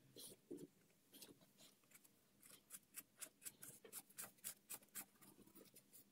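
Socket ratchet clicking as it is worked back and forth on a bolt under a motorcycle engine: light, sharp clicks, sparse at first, then quicker and more even, about four or five a second.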